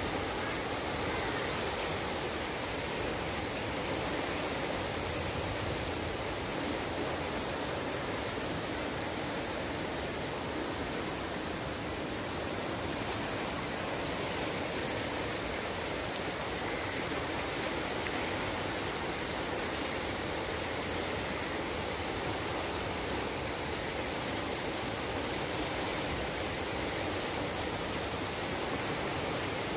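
Muddy floodwater from a cloudburst rushing past trees in a steady, unbroken rush. Faint high chirps repeat about once a second.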